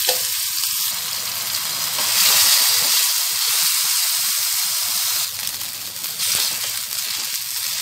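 Ginger-garlic paste and cumin seeds frying in hot oil in a pan, a steady sizzle. The sizzle swells about two seconds in and eases slightly after about five seconds.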